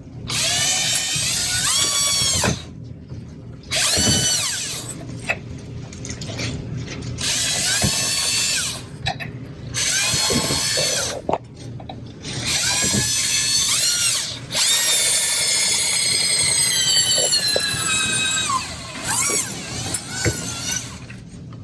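Power drill boring holes through a ceiling tile, running in a string of short runs; the motor whine rises in pitch as it spins up and drops as it slows between runs.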